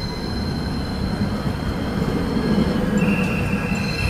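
Hakodate city tram car 9602 passing close by, its wheels rumbling on the rails and growing louder to a peak just past midway. About three seconds in a high, steady wheel squeal joins the rumble.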